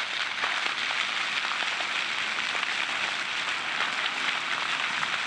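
Fountain jets splashing steadily onto a plaza pool, an even hiss of falling water.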